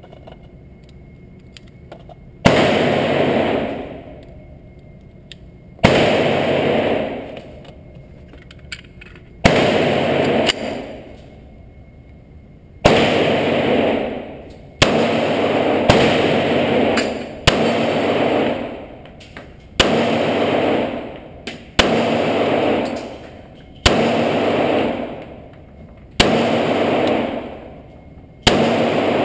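Glock 30 .45 ACP pistol firing single shots, about a dozen in all, spaced roughly two to three seconds apart and starting about two seconds in. Each shot rings out in a long echo off the walls of an indoor range.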